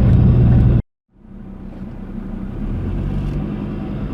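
Car driving, a steady low engine and road rumble. It cuts off abruptly just under a second in, then fades back up to a steady rumble.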